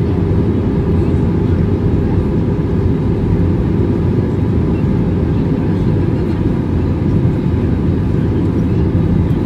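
Steady cabin noise of an Airbus A321 airliner in flight: the low, even rumble of its jet engines and the airflow over the fuselage, heard from inside the passenger cabin.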